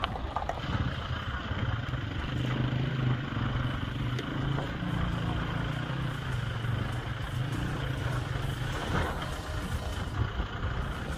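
Toyota Hilux pickup's engine running with a steady low hum as the truck crawls over rocky ground; the hum eases off after about seven seconds.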